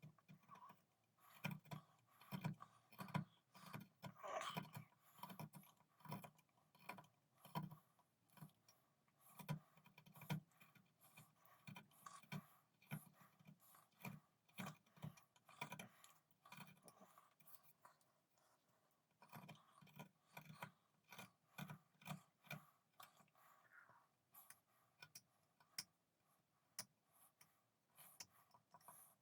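Irregular light clicks, taps and short scrapes of hand tools at close range, with a brief lull a little past the middle.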